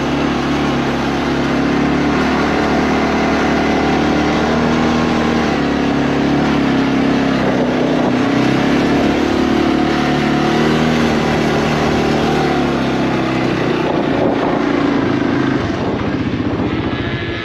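A small vehicle engine running steadily, its pitch rising and falling a little with the throttle, easing off near the end.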